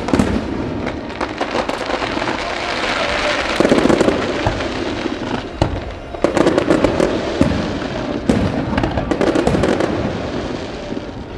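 Fireworks display: aerial shells bursting in quick succession, many sharp bangs and pops over a continuous crackle.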